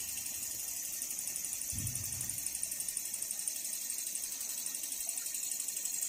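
Crickets chirping in a continuous high-pitched trill.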